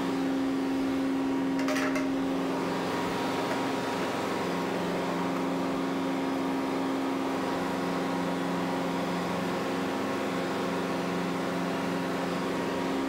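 Steady engine-room machinery drone with a constant low hum, heard from inside a ship's main-engine crankcase. One brief knock about two seconds in.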